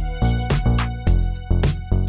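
Electronic background music with a steady beat and a heavy bass line.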